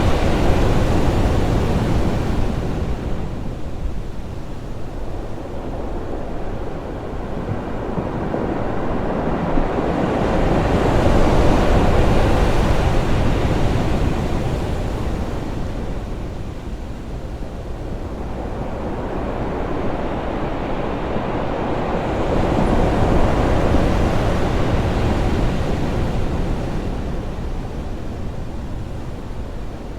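Loud ocean waves crashing on rocks: a continuous wash of surf that swells and fades, with three big surges about eleven seconds apart.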